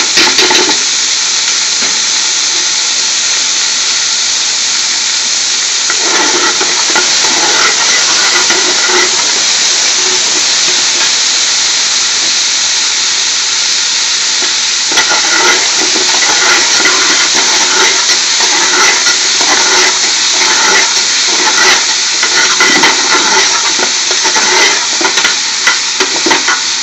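Chopped onions and garlic sizzling steadily in hot vegetable oil in a large aluminium pot. A metal spoon stirs and scrapes through them at times, busier from about six seconds in and again from the middle on.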